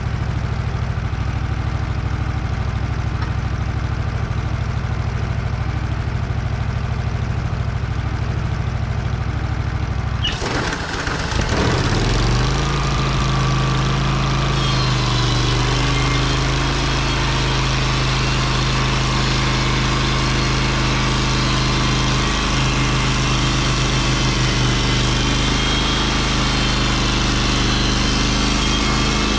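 Wood-Mizer portable sawmill's engine running steadily. About ten seconds in the sound changes abruptly and the engine settles into a fuller, steady note, with a thin whine over it from about fourteen seconds.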